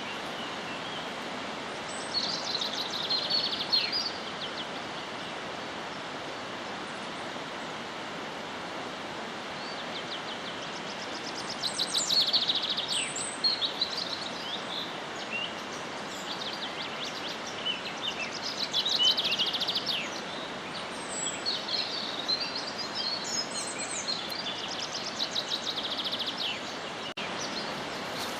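Wild birds singing in rapid, trilling phrases that come and go several times, over a steady background hiss.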